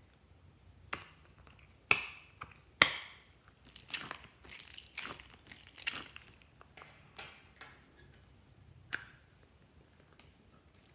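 Sticky clicking and crackling as a soft rubber elephant toy is handled over slime. Two sharp clicks stand out about two and three seconds in, then a run of smaller crackles, and one more click near the end.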